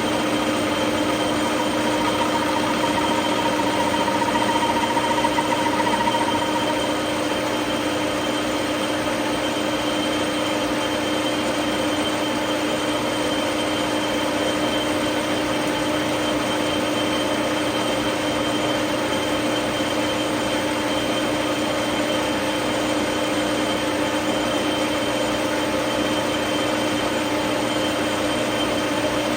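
Reed-Prentice metal lathe running steadily while turning down a fire hydrant's upper shaft, its motor and gearing giving a constant hum. A higher whine swells for a few seconds near the start and then fades.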